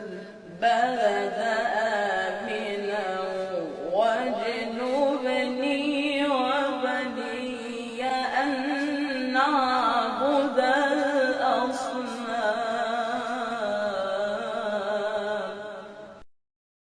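Quran recitation in melodic tajweed style: one voice holding long, ornamented notes that waver and bend in pitch, with brief breaths between phrases. It cuts off abruptly near the end.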